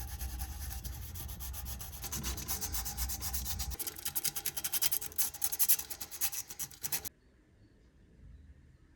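Car disc brake scraping in rapid pulses, a rasping, gobble-like noise; a low rumble underneath stops about four seconds in, and the scraping cuts off suddenly near the end.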